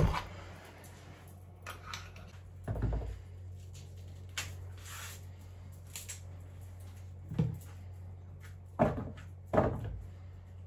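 Kitchen handling noises: a few dull knocks of things being set down or moved on a worktop, the two loudest close together near the end, with faint brief rustles between.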